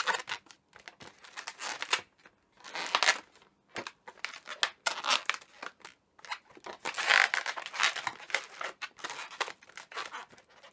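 Inflated latex modelling balloons rubbing against each other and against the hands as they are squeezed and worked, in irregular crinkly bursts with short pauses between them.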